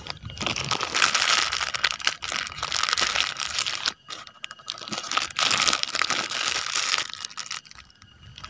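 Close crinkling and rustling handling noise, like plastic or cloth being worked right by the microphone while the eel hook is rebaited. It comes in two long spells, with a brief break about four seconds in, and dies down near the end.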